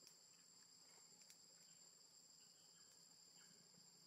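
Near silence with a faint, steady, high-pitched insect drone and an occasional soft tick.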